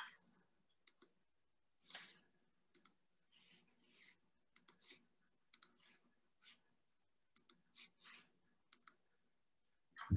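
Near silence broken by faint, short clicks, many in close pairs, about once a second, with a few softer puffs between them.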